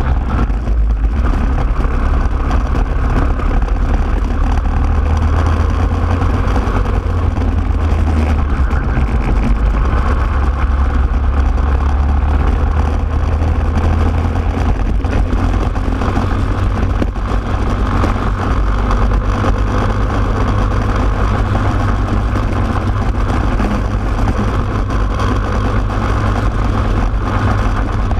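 Racing kart engine running hard on a lap, heard close up from on board the kart, its note shifting as the kart speeds up and slows.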